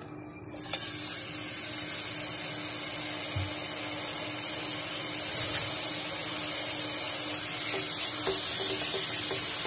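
Raw minced meat sizzling in hot oil in a steel frying pan: a steady high hiss that starts about half a second in, as the keema hits the oil, and keeps up.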